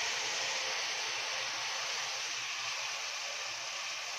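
Frozen peas and carrots sizzling in hot butter and oil in a steel pot: a steady hiss from the still-icy vegetables, easing slowly.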